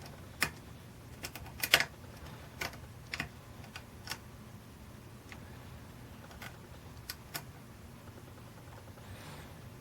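Hook pick working the pin stacks of a 6-pin Yale cabinet lock under tension: irregular light metallic clicks and taps as pins are lifted and set, the loudest a little under two seconds in, thinning out in the second half, over a faint steady low hum.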